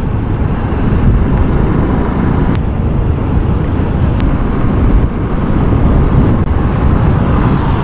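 Motorcycle riding at road speed, heard from the rider's own microphone: a steady low rumble of engine, tyres and wind. Two brief ticks come about a second and a half apart.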